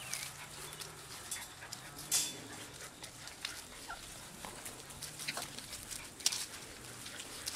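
Twelve-week-old puppies playing in grass and dry leaves: scattered rustling and light scuffling, with a few faint short yips. A brief louder scuff comes about two seconds in.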